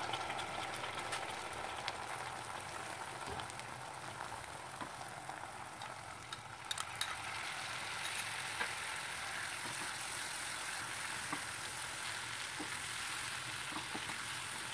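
Onion-spice masala sizzling steadily in oil in a non-stick frying pan as mustard seed paste is added to it, with a few light clicks about halfway through. Near the end a wooden spatula stirs the paste into the masala.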